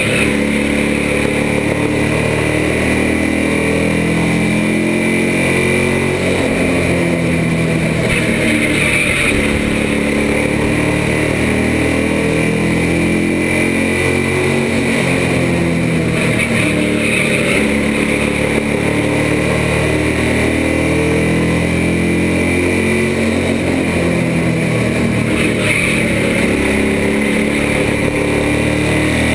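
Bandolero race car's single-cylinder Briggs & Stratton engine running hard at racing speed, heard from inside the cockpit. Its pitch rises and falls in slow waves every several seconds as the car laps.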